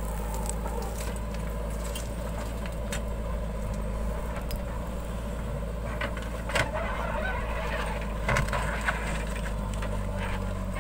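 JCB 3DX backhoe loader's diesel engine running steadily while the backhoe arm dumps, swings and digs, with a few short knocks from the working bucket about two-thirds of the way through.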